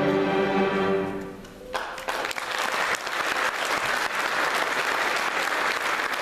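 A string orchestra holds its final chord, which dies away about a second and a half in; then the audience breaks into steady applause.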